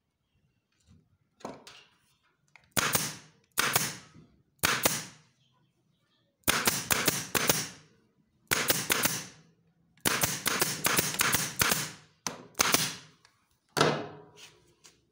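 Staple gun driving staples through upholstery fabric into a wooden chair frame: sharp shots, some single and some in quick bursts of three to six.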